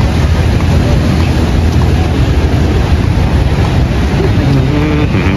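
Wind buffeting the microphone in a loud, steady low rumble, over the noise of street traffic.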